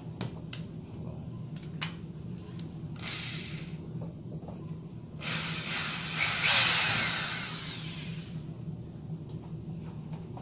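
Cordless drill driving screws into the back panel of a reptile rack: a short run, then a longer run of about three seconds whose whine falls in pitch as it slows. A few sharp clicks of handling come before.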